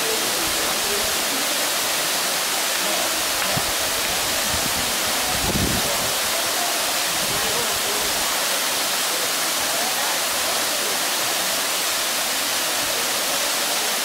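Waterfall pouring into a rock pool: a steady, even rush of falling water. A brief low rumble rises and fades about five and a half seconds in.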